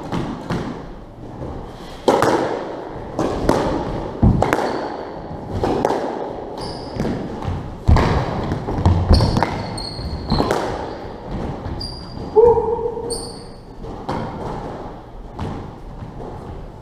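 Squash rally: the rubber ball is struck by rackets and smacks off the court walls again and again, each hit ringing in the walled court, with short high squeaks of court shoes on the wooden floor and one louder, lower squeak about two-thirds of the way through.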